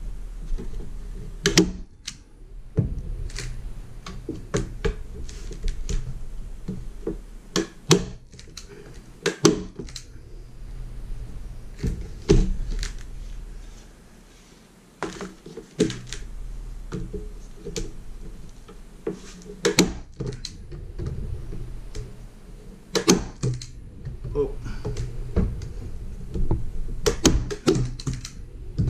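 Hand-squeezed metal staple gun driving staples into the hardwood frame of a canoe seat: sharp snaps at irregular intervals, some in quick pairs, mixed with knocks as the wooden frame is handled, and a quieter pause about halfway.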